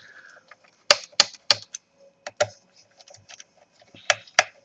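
A string of sharp clicks and taps from a screwdriver working the service-cover screws on the plastic underside of an HP Compaq Presario CQ61 laptop, some in quick pairs, with faint scratching and ticking between them.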